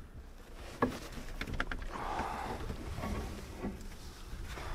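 Scattered light knocks and clunks of a canoe and gear being handled as it is readied to launch, with a short rush of noise about two seconds in.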